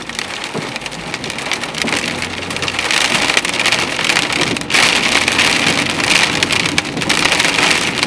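Heavy hail shower: a dense, fast clatter of hailstones pelting down, building over the first few seconds and then holding steady.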